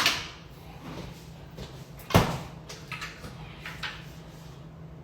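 Kitchen doors being opened and shut: a sharp knock at the start and a louder bang about two seconds in, with lighter clicks and knocks between.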